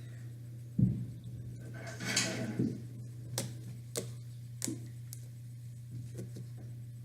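Handling sounds of slime making: a bump, a short rush like liquid being poured or squeezed from a bottle, then a few light clicks and taps of a craft stick and bowl, over a steady low electrical hum.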